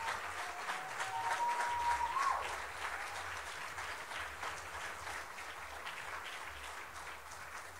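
Congregation applauding, the clapping slowly dying away. About a second in, one high held cheer rises above it and falls away.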